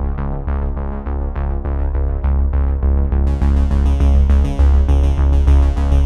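Background music: a synthesizer-led track with a steady beat and heavy bass. Bright high percussion joins about three seconds in.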